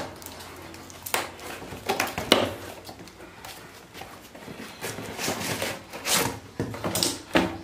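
Cardboard box being torn open by hand: flaps pulled and ripped, cardboard crackling and scraping in a string of short, sharp rips, more of them in the last few seconds.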